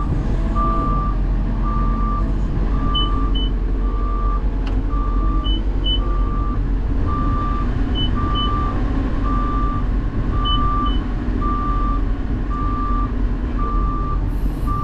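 Backup alarm of an articulated wheel loader beeping steadily, about two beeps a second, over the machine's engine running as it reverses. A higher short double beep repeats every two to three seconds.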